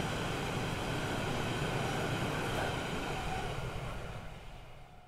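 Electric multiple-unit passenger train running past on the track, a steady running noise that fades out over the last second and a half.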